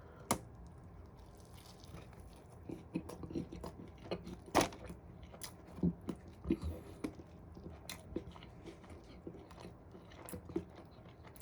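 A person biting into and chewing a burger with a hash brown and patty inside, close to the microphone: soft, irregular crunches and wet mouth clicks, the loudest about four and a half seconds in. The hash brown gives only a light crunch, not as crunchy as the eater would like.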